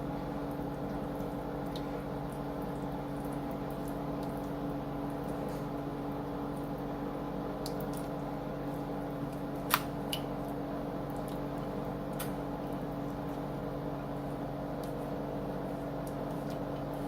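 Thick, creamy casserole mixture being poured and scraped from a bowl over biscuits in a baking dish, with soft squishing and a few sharp clicks, the loudest about ten seconds in, over a steady low hum.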